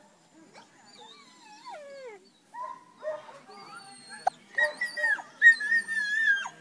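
A dog whining in a run of high whimpers that slide up and down in pitch, then a long, loud, high whine held for about two seconds in the second half.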